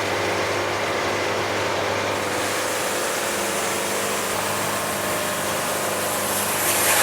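Wood-Mizer portable band sawmill running steadily, its motor humming under the band blade, with a hiss that grows louder near the end. The band runs quietly with no scratching, a sign that it is not building up debris.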